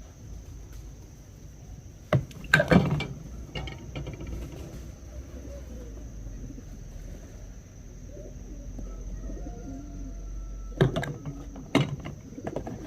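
Several sharp knocks and clatters, loudest about two seconds in and again near the end, over a low background rumble and a steady high-pitched whine.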